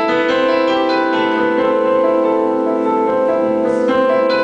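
Background piano music: sustained notes and chords held under a pause in a spoken poem.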